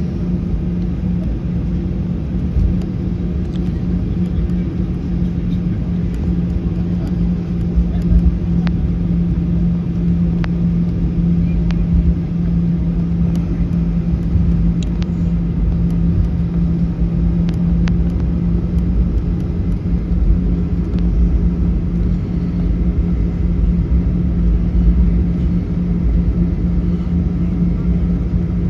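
Cabin noise inside a Ryanair Boeing 737 taxiing after landing: the steady low hum and rumble of the idling jet engines and cabin air systems. A few faint clicks and rattles sound over it.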